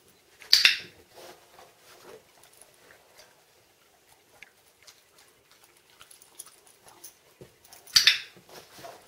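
A dog mouthing a rope handle on a plastic laundry basket, with faint scattered ticks and scratching. Twice, about seven seconds apart, comes a loud sharp double click.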